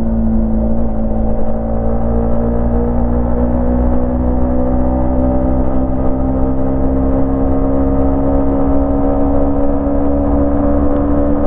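Yamaha MT-15's 155 cc single-cylinder engine and exhaust running steadily under way. Its pitch rises slowly as the revs build.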